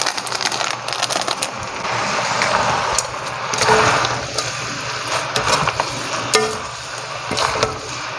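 Fried noodles and vegetables sizzling in a metal wok as they are tossed and stirred with chopsticks and a wooden spatula, with frequent clicks and knocks of the utensils against the pan.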